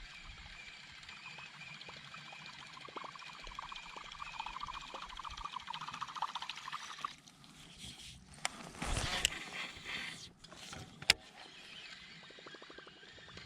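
Fishing reel being wound in, a whir with fast, even clicking for about seven seconds, then a short rush of noise and one sharp click.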